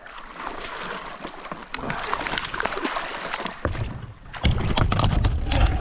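Water splashing and sloshing with scattered light knocks as a hooked fish is handled beside a kayak. A heavy low rumble joins about three and a half seconds in.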